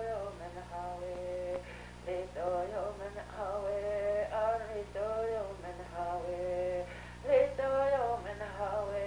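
Soundtrack singing: a voice sings a melody of short held notes that rise and fall, over a steady low hum.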